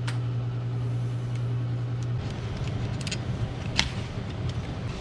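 A steady low hum, unbroken at first and choppier after about two seconds, with a few light clicks and one sharp plastic knock near the end as metal detector parts are handled.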